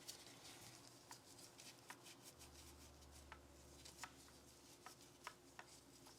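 Faint, scattered small clicks and light taps of Glock 19 pistol parts and tools being handled during cleaning and trigger work, a dozen or so irregular ticks with no steady rhythm.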